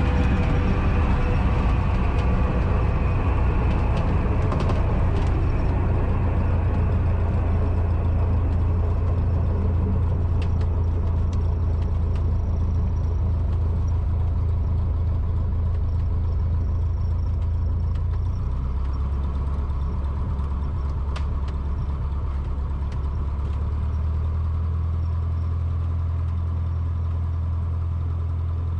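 Cessna 150's four-cylinder Continental O-200 piston engine running steadily, heard from inside the cabin as a low drone. Its note drops about 18 seconds in and shifts again a few seconds later, a change in engine power.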